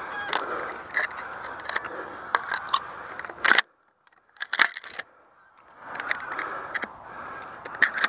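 Rustling and scraping of clothing and dry stubble close to the microphone as the hunter shifts and handles his shotgun, with scattered clicks and knocks. The rustling cuts off suddenly about three and a half seconds in, leaving a couple of sharp clicks, and starts again about two seconds later.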